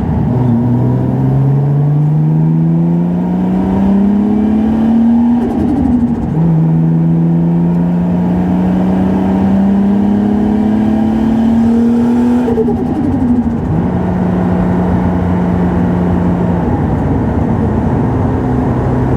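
Stroked Nissan RB26 inline-six with a big single turbo in an R32 Skyline GT-R under light acceleration: revs climb steadily, drop at an upshift about five seconds in and again about twelve seconds in, each time with turbo flutter as the throttle lifts. It then holds steady revs at a cruise and drops lower near the end.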